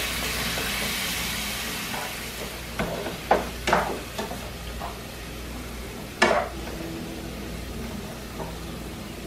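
Chicken pieces sizzling in olive oil in a deep stir-fry pan on medium-high heat, with a few knocks of the stirring utensil against the pan; the loudest knock comes about six seconds in.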